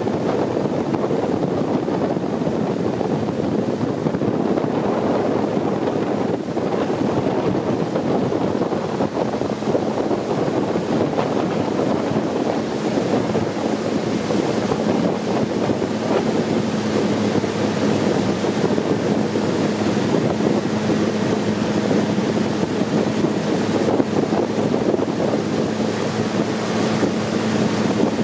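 Long-tail boat's engine running steadily while under way, with wind buffeting the microphone. A steady engine hum comes through more clearly about halfway through.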